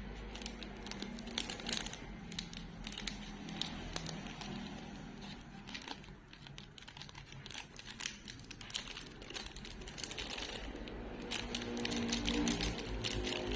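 Plastic packaging crinkling and rustling as it is handled, with many small sharp clicks, as a desktop RAM module is taken out for installation.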